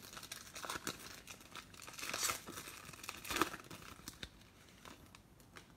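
Foil trading-card pack wrapper being torn open and crinkled by hand: irregular crackling rustles, busiest around two and three seconds in and thinning toward the end.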